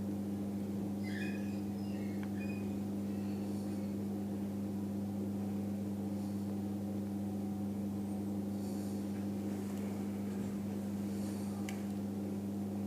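A steady low hum throughout, with a few faint short scratchy sounds, about a second in, near two seconds and near the end.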